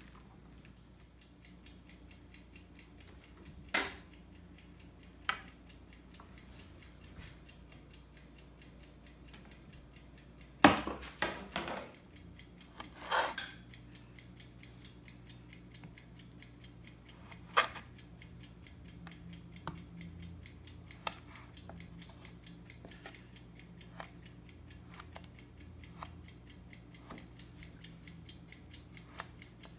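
Kitchen knife cutting soft dough into small cubes on a wooden cutting board, the blade ticking against the board about once a second. Louder knocks come in the first half, the loudest a cluster about eleven seconds in.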